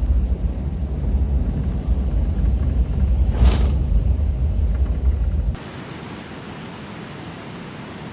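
Storm noise: a loud, fluctuating low rumble of wind buffeting the microphone over a haze of rain and water, with a brief louder hiss about three and a half seconds in. About five and a half seconds in it cuts to a quieter, steady, even hiss of heavy rain.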